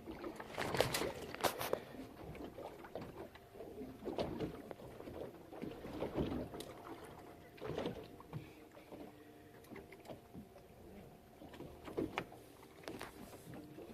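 Sounds aboard a fishing boat at sea: water sloshing against the hull with irregular knocks and bumps.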